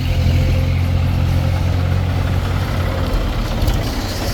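Heavy diesel engine running steadily at low revs, a loud, even low drone, with a few light clicks near the end.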